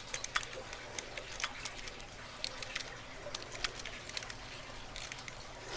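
Lock pick working the pins inside a lock under a tension wrench: a run of small, irregular metallic clicks and ticks as the pins are set, the lock not yet open.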